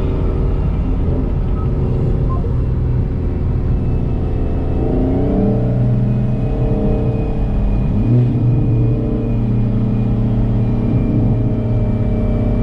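Cabin drone of a Hyundai Veloster N's turbocharged 2.0-litre four-cylinder under way, with the engine note rising in pitch about five seconds in and again about eight seconds in.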